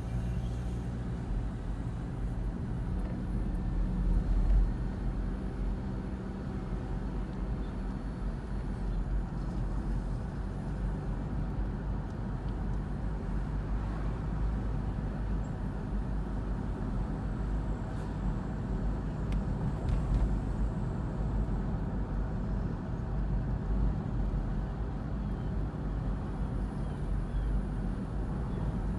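Cabin road noise of a 2011 Honda CR-V driving: a steady low rumble of tyres and engine, with a brief louder bump about four seconds in and again around twenty seconds.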